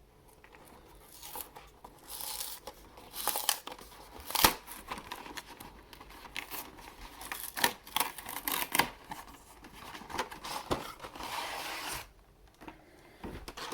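Plastic wrapping being torn and crinkled off a trading-card box: irregular scratchy tearing with sharp snaps, starting about a second in and pausing briefly near the end.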